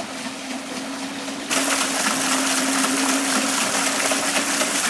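Water running and splashing over a small garden water wheel: a steady rushing noise that jumps suddenly louder about a second and a half in, with a faint steady hum underneath.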